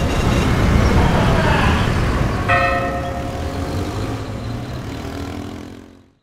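Cinematic soundtrack music closing out with a logo sting: a low rumbling swell, then a bell-like chord struck about two and a half seconds in that rings and fades out.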